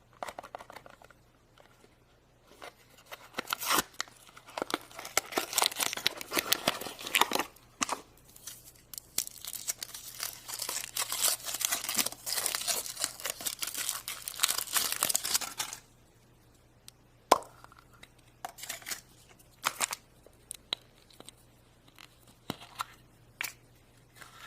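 Foil wrapper of a chocolate surprise egg crinkling and tearing as it is peeled off, from about three seconds in until about sixteen seconds. After that come scattered small clicks and taps from handling the egg and its contents.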